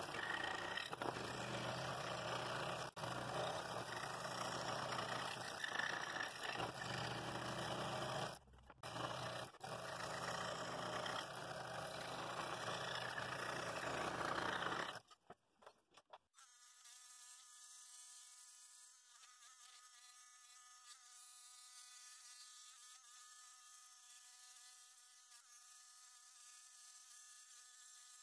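Scroll saw running, its blade cutting through a thick block of walnut with a steady buzzing rasp, broken by two short pauses about eight and nine seconds in. About fifteen seconds in the sound drops out briefly, then goes on as a quieter, thinner buzz of steady high tones.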